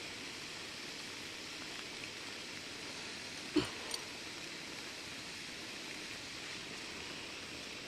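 A steady hiss, with a single knock about three and a half seconds in and a lighter click just after.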